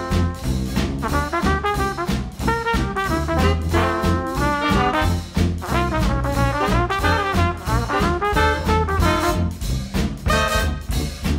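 Background music: upbeat brass-led swing jazz over a steady beat.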